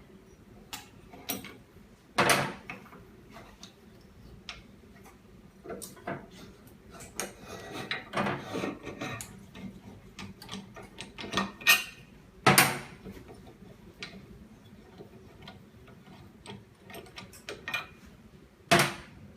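Irregular clicks and knocks of hands working a de-bubbler machine and an iPhone screen, with three louder knocks about two, twelve and nineteen seconds in.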